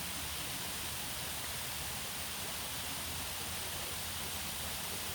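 Steady, even rushing of water from a small waterfall, with no changes or distinct events.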